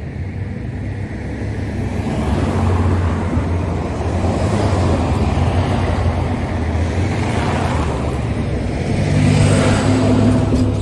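A car driving: a steady engine hum under tyre and road noise, which grows louder about two seconds in and swells again near the end.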